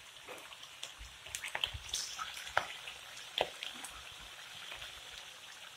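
Soaked chana dal (split chickpeas) deep-frying in hot oil in a kadhai: a steady faint sizzle, broken by many small irregular pops and crackles.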